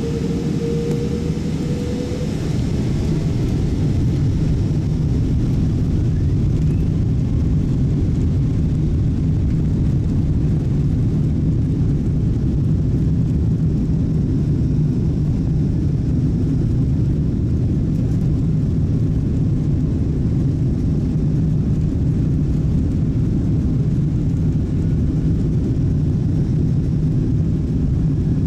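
Boeing 777-200 jet engines and takeoff roll heard from inside the cabin. A faint whine rises in pitch for the first two seconds. About three seconds in the sound grows louder and holds as a steady low rumble at takeoff power.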